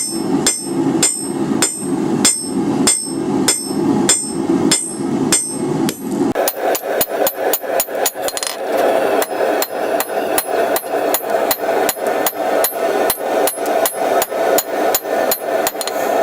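Blacksmith's hammer striking hot steel on an anvil, drawing out a tine of a split bar: steady, evenly spaced blows about two a second, quickening to about three a second with a brighter ring about six seconds in.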